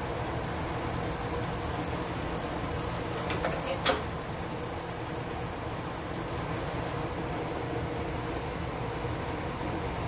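Bridgeport milling machine spindle running while an end mill cuts into a metal block, with a high whine from the cut that stops abruptly about seven seconds in as the cutter is lifted clear; a single sharp click just before four seconds.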